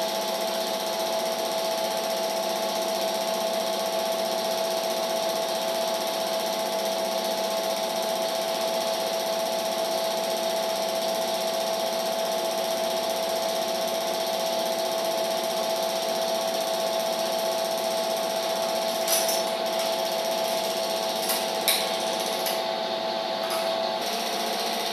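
Film projector running steadily: a continuous mechanical whir with a steady hum, broken by a few sharp clicks near the end.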